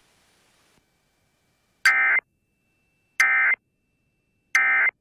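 Emergency Alert System SAME end-of-message (EOM) data tones: three identical short bursts of warbling digital tones, each about a third of a second long and a little over a second apart. They mark the end of the broadcast alert.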